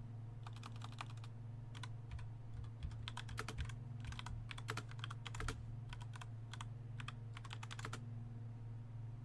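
Typing on a computer keyboard: irregular runs of quick key clicks with short pauses between them, stopping about a second before the end, over a steady low electrical hum.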